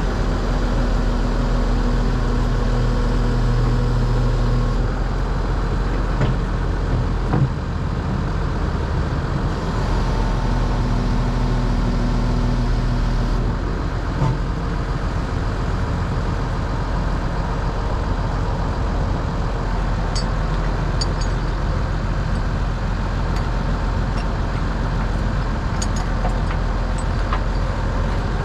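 Kobelco 210 excavator's diesel engine running steadily while its boom is being worked, with two stretches of a steadier pitched hum under load and a few short knocks.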